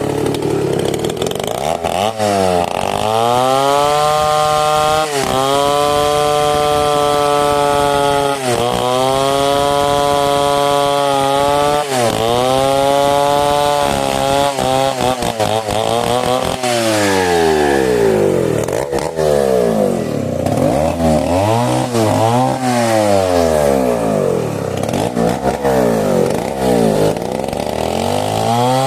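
Two-stroke chainsaw cutting mahogany wood, revved up and held at high speed for a few seconds at a time, then dropping back. In the second half the revs rise and fall more quickly, several times in a row.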